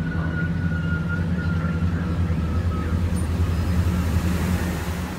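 GWR Class 387 electric multiple unit pulling out of the station: a steady low hum, with a faint high whine from its traction equipment in the first few seconds.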